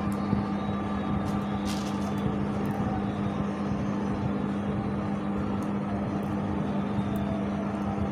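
A steady low background hum with a constant tone, joined by a few faint light clicks.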